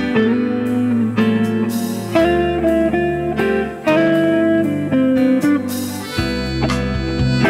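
Live band music: a semi-hollow electric guitar plays a picked melodic intro line over held low bass notes and sustained chords from accordion and keyboard.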